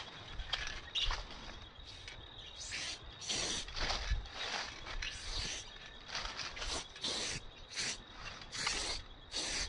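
Aerosol spray-paint can hissing in a series of short bursts, starting about three seconds in. Birds chirp briefly near the start.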